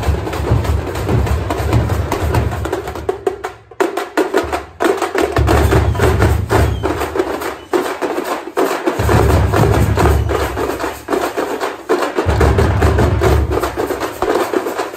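Festival drum troupe beating a fast, dense rhythm with sticks on hand-held drums and large drums on stands, with a deep low boom coming and going in stretches of a few seconds. The drumming drops out briefly about three and a half seconds in, then starts again.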